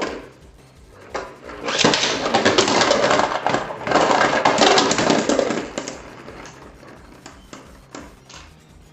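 Beyblade Burst spinning tops clashing and scraping against each other and the plastic stadium: a dense, loud clatter of rapid hard clicks for several seconds, then scattered quieter clicks toward the end.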